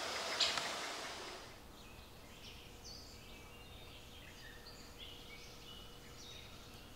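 Songbirds chirping: short, high whistled notes repeating over a quiet outdoor background. For the first second and a half a rush of outdoor noise with a single knock fades out.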